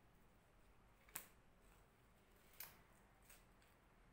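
Near silence, broken by two faint sharp clicks about a second and a half apart and a third, fainter one near the end.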